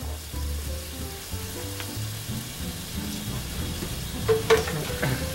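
Sliced mushrooms in sauce sizzling in a frying pan as they are stirred with a wooden spatula, with a couple of sharp knocks of the spatula against the pan about four and a half seconds in.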